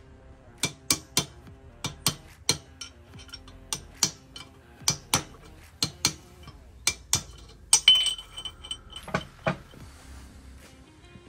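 Metal tools and parts clinking and tapping against a steel Dana 44 axle housing during differential setup: irregular sharp metallic taps, about two a second, with a louder ringing clink about eight seconds in. Quiet background music plays underneath.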